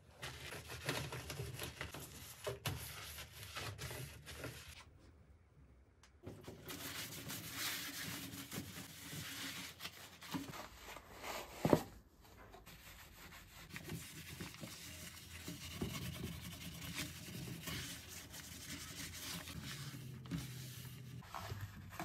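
Metal scouring pad scrubbing a stove's enamel and hotplates in repeated scratchy strokes, with a sharp knock about twelve seconds in.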